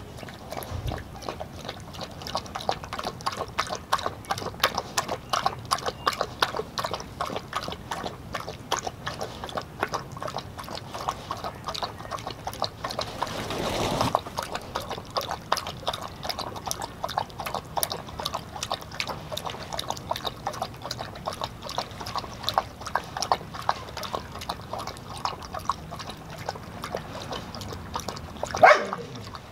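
A Doberman eating ground raw meat from a stainless steel bowl: wet chewing, smacking and lapping, with rapid clicks throughout. A brief louder sound comes near the end.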